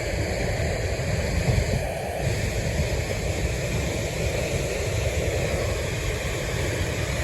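Steady rush of a large waterfall, mixed with wind buffeting the microphone.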